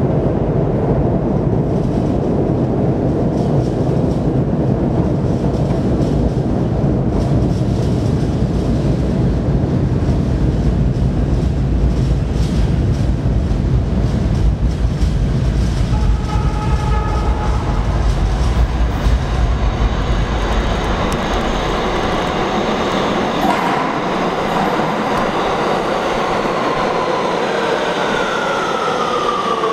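Kawasaki R211A subway train approaching through the tunnel with a low rumble of wheels on rail. It then pulls into the station and brakes, its propulsion whine falling steadily in pitch as it slows.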